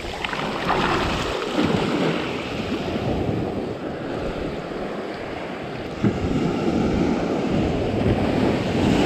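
Surf washing up the beach and swirling in the shallows around a hand rinsing gutted fish, with wind buffeting the microphone.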